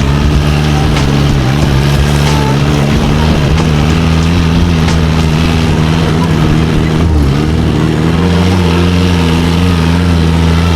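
Off-road vehicle's engine running steadily under load as it drives a rough track, its pitch wavering slightly and deepening about 8 seconds in, with a few light knocks.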